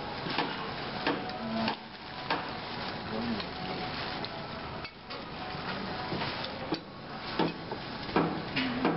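Chopsticks, some of them metal, clicking and scraping against plates and a glass bowl as several people eat, in irregular sharp clinks. Faint voices murmur behind them.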